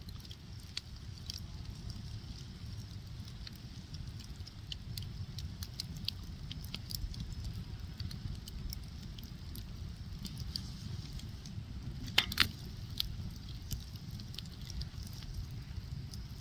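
Fire crackling: irregular sharp pops and snaps over a low steady rumble of the flames, with a burst of louder pops about twelve seconds in.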